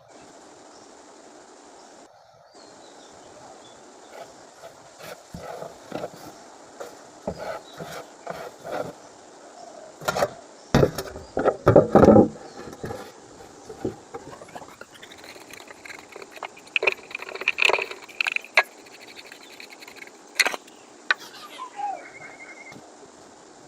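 Handling knocks and clatter of parts being worked on, loudest about halfway through. Then a small electric power tool's motor whines up to speed, runs steadily for about six seconds, and winds down near the end.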